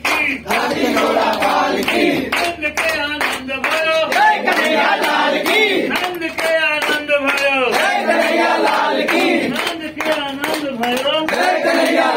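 A group of voices singing a Hindu devotional song (bhajan) together, with steady rhythmic hand-clapping keeping time.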